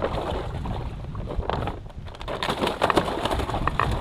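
Wind buffeting the microphone, with rustling and scattered light knocks from handling inside a small boat, thickest in the second half.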